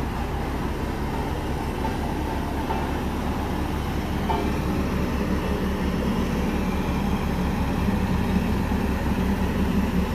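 Vibratory road compactor at work, its diesel engine running while the vibrating drum shakes the road with a rapid, even, low throb ('thar thar thar'). It grows a little louder about four seconds in.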